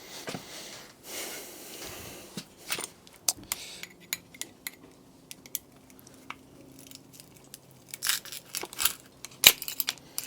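Scattered clicks and light metallic clinks, with a faint scraping rustle at the start: metal tools being handled.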